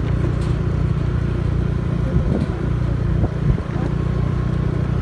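Motorcycle engine running steadily at road speed, with a low wind rumble on the microphone.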